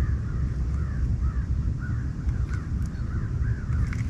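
Many birds calling repeatedly in short arched notes, several a second, over a steady low rumble.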